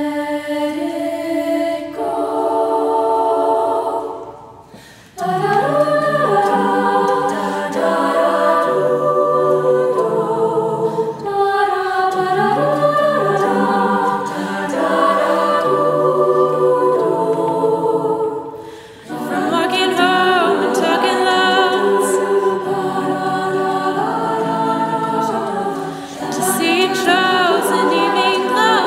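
Women's a cappella group singing in close harmony, with no instruments. Held chords open, break off briefly about four seconds in, then return as fuller moving harmony, with a high wavering voice above them about two-thirds of the way through and again near the end.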